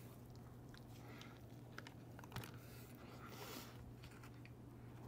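Near silence: a steady low hum with scattered faint clicks and ticks, the clearest about two and a half seconds in.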